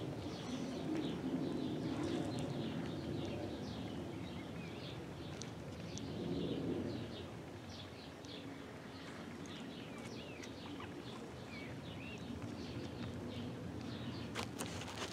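Many birds chirping and calling at once, a dense run of short high calls, over a low background rumble that eases after about seven seconds.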